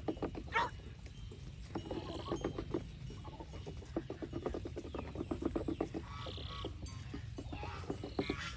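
A flock of domestic geese calling: bouts of rapid, low, stuttering gabbling, repeated several times, with a few sharper, higher honks.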